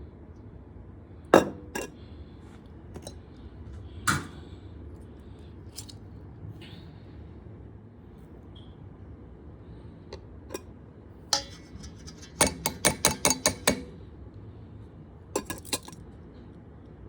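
Kitchen dishes and utensils clinking: a few separate sharp knocks, then a quick run of about eight clinks about three-quarters of the way through, and two more shortly after.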